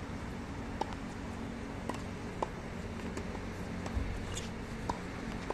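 Tennis balls struck by rackets and bouncing on a hard court: sharp, short pops about every half second to second, six or seven in all, over a steady low hum.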